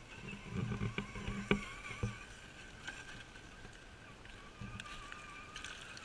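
Small electric motor and geartrain of an RC4WD Gelande II Defender scale crawler whining steadily, its pitch wavering with the throttle. A few knocks and thuds come in the first two seconds.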